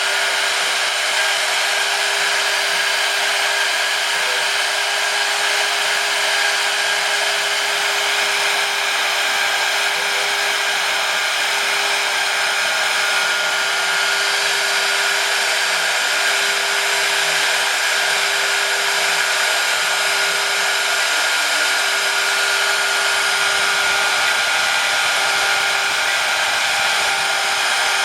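High-speed spindle motor of a DIY CNC PCB drilling machine running steadily, a continuous whine over an even airy hiss.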